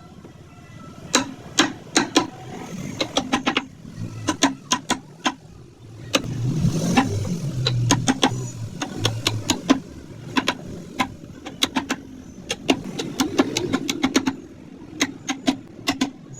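Sharp wooden taps in quick runs of a few strikes, typical of a mallet driving a carving chisel into wood. A low rumble swells for a few seconds around the middle.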